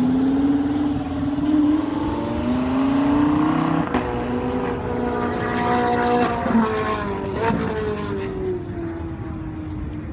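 A high-performance sports car engine revving hard out on the track. Its pitch climbs for about four seconds, breaks briefly, holds, then falls away and grows fainter near the end.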